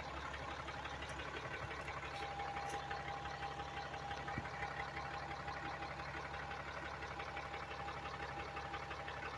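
A pickup truck engine idling steadily, with a faint thin whine that joins about two and a half seconds in.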